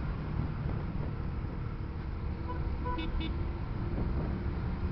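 Steady engine and road rumble of a motorcycle ride through heavy traffic, picked up by a helmet-mounted camera. About three seconds in, two short horn toots sound.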